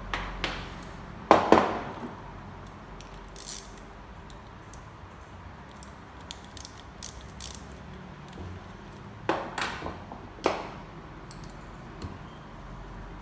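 Metal tools and fittings knocking and clinking while a fitting is taken off a common-rail high-pressure fuel pump. There is a loud pair of knocks about a second and a half in, light metallic ticks after it, and three more knocks toward the end.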